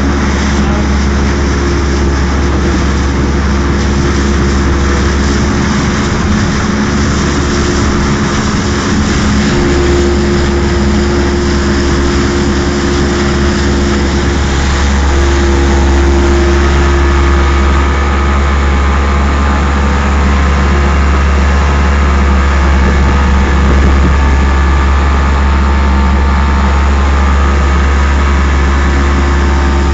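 Boat's Mercury 90 outboard motor running steadily under way, a constant low hum, with water rushing past the hull.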